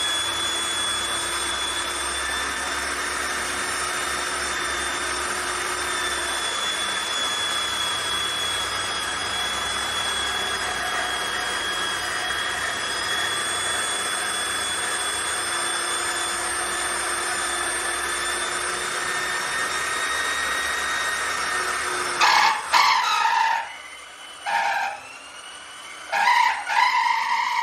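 The JLD 3301 350-watt polisher-drill's electric motor running steadily with a high whine under load. Near the end it is stopped and restarted several times in short bursts, its pitch rising as it spins up each time.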